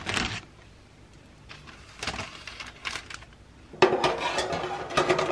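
Light handling knocks and rustles, then about four seconds in a louder metallic scrape and clatter as a metal baking tray slides onto an oven rack.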